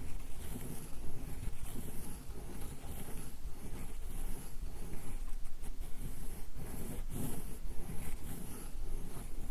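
Sumi ink stick being ground on a suzuri inkstone: a continuous scraping rub that swells and eases with each back-and-forth stroke.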